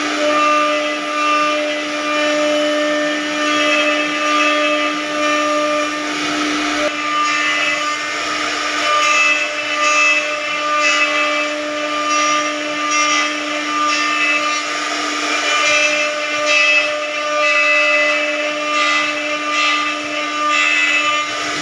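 An electric power tool in a woodworking shop, running steadily with a constant motor hum under a rasping, fluctuating noise of wood being worked.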